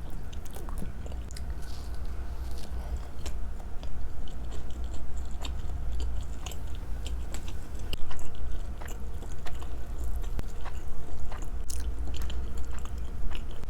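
Close-miked mouth sounds of someone chewing raw salmon sashimi: wet smacks and small clicks, irregular throughout, over a steady low hum.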